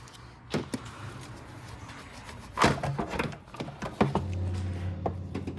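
Knocks and clatter of the plastic intake duct being worked loose and lifted out of the engine bay. About four seconds in, a steady low hum starts and keeps going.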